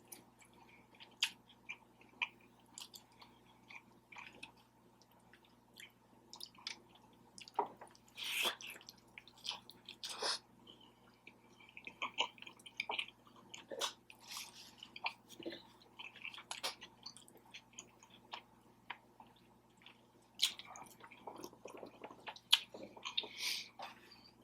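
Close-miked chewing and wet mouth sounds of a person eating birria tacos, scattered soft smacks and slurps.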